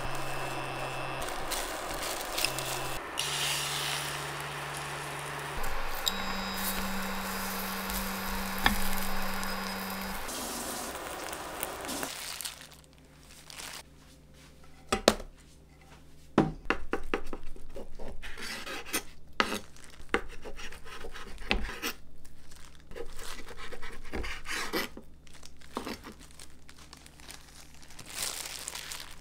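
Egg sizzling in a frying pan over a low steady hum, for about the first twelve seconds. Then quieter handling: plastic food gloves crinkling and light taps and clicks at a cutting board while rice is spread on seaweed.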